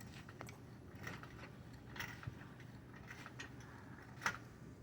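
Faint, scattered clicks from a jack being worked under a 2009 Mazda 5's front ball joint, raising the suspension, with the clearest click a little after four seconds in. No suspension pop is heard: with the sway bar end links disconnected, the popping does not come back.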